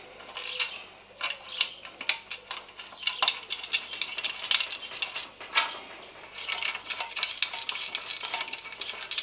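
Irregular small metallic clinks and scrapes as bolts and washers are fitted by hand through an aluminium sump guard into its mounting bracket.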